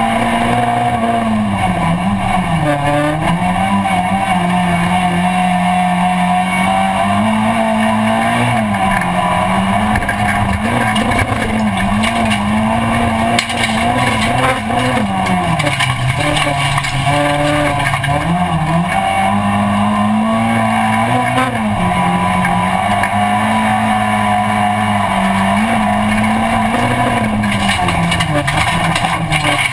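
Rallycross car's engine running hard under racing load, heard from inside the cabin, its pitch dipping briefly and climbing again many times through the lap.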